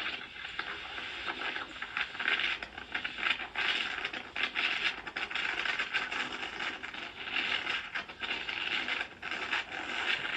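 Hurricane wind and rain: a rushing hiss that swells and dips unevenly.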